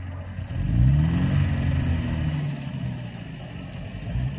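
Off-road 4x4's engine revving up sharply about a second in, then the revs falling away slowly.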